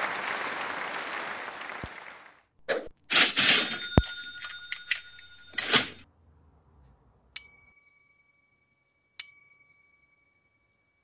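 Edited sound effects: applause fading out over the first two seconds, then a short clatter with ringing bell tones, then two single bell dings about two seconds apart, each ringing out.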